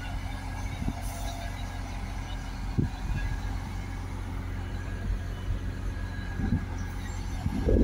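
Mobile crane diesel engines running steadily with a low hum, with a few brief low thumps and a louder low rumble near the end.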